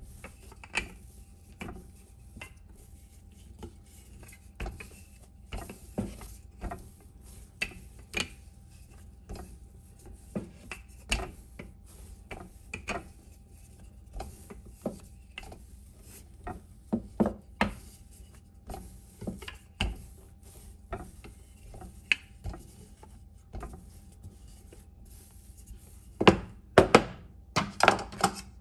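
Wooden rolling pin working bread dough flat on a bamboo cutting board: irregular soft knocks and wood-on-wood rubbing as the pin is pushed back and forth, with a few louder knocks near the end.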